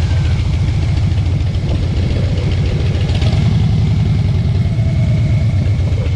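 Motorcycle engine running steadily at low revs, with a fast, even low pulsing.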